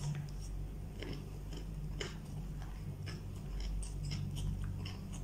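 A person chewing food, with irregular small wet clicks and crackles as fingers pick food from a plastic takeaway tray. A steady low hum runs underneath.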